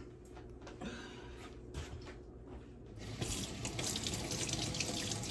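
Kitchen sink tap turned on about three seconds in and running steadily, a water hiss after a few faint knocks.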